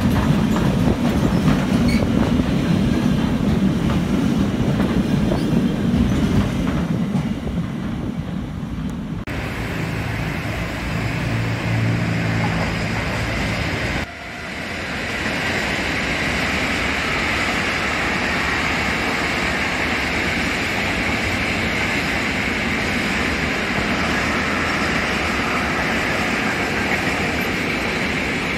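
A freight train of empty double-deck car-carrier wagons rolling past close by, its wheels rumbling and clattering on the rails, easing off after about seven seconds. After a sudden break about halfway through, a steady, higher hiss of a more distant freight train running on a far track.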